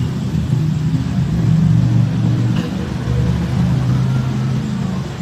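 Motorcycle engine running at idle, steady and low-pitched, swelling slightly about two seconds in.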